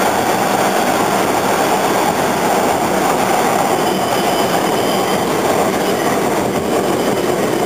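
Bombardier T1 subway car running at speed, heard from inside the car: a steady rumble of wheels on rail. The car has a fault that makes it thump whenever it moves at 10 km/h or more.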